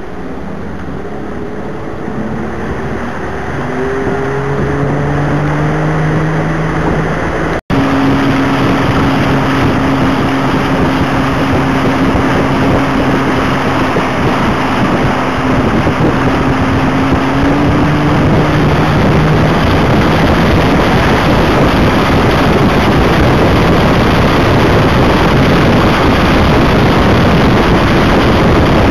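Motorboat engine speeding up, its pitch rising over the first several seconds, then running at speed under a growing rush of wind on the microphone and water along the hull. The sound cuts out for an instant about eight seconds in.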